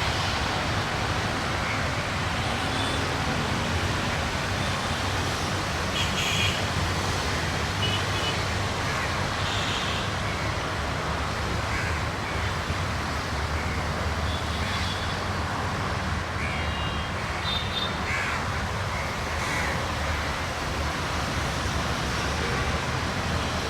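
Crows cawing again and again, short separate calls, over a steady low rumble.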